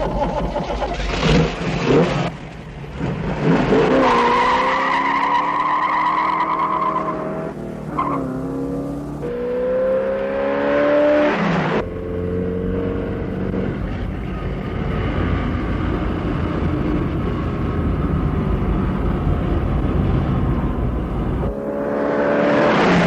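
A 1971 Ford Custom 500's 429 V8 accelerating hard, its engine note rising and dropping back repeatedly as it revs through the gears, with tyres squealing.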